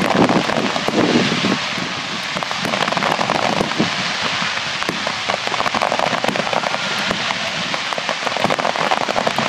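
Fireworks finale: a dense, unbroken crackle of many shells bursting at once, with a few deeper booms in the first second and a half.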